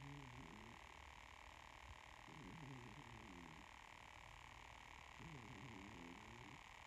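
Calico cat snoring in its sleep: faint snores about every three seconds, each lasting about a second, three in all.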